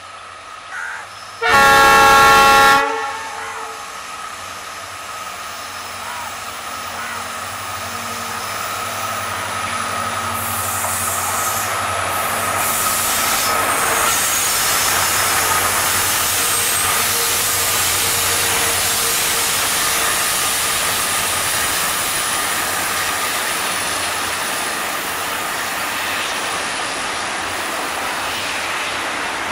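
WDG4D diesel locomotive sounding its horn, a short toot and then one loud blast of about a second, near the start. Its engine and the rolling of a goods train of tank wagons then swell as it passes close by, and the wagons run on with clickety-clack of wheels over rail joints.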